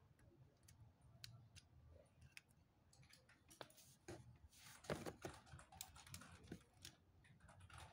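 Faint clicks and light rattling of LEGO Technic plastic parts being handled: a round badge piece is pressed onto the model's front, and the model is then picked up and turned over, with the busiest burst of clicks about five seconds in.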